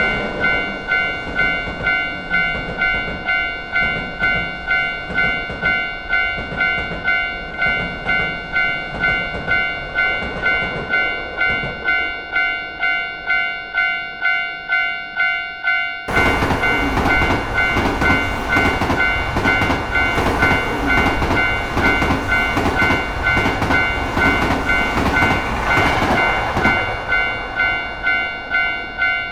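Japanese railroad crossing warning bell ringing in a steady repeating ding, about one and a half strikes a second. About sixteen seconds in, the rumble and wheel clatter of a passing train cut in suddenly, with the bell still ringing.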